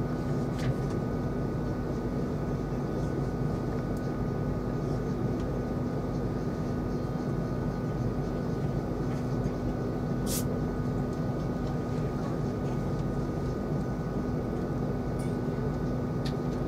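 Steady interior hum of a standing Class 390 Pendolino electric train, with a low steady tone and a few light clicks, one sharper than the rest about ten seconds in.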